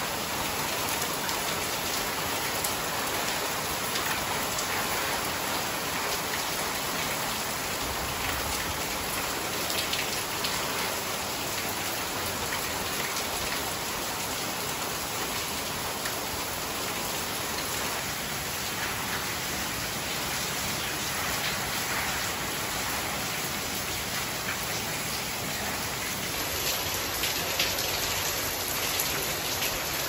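Heavy rain falling steadily, a dense even patter of drops on leaves and yard surfaces.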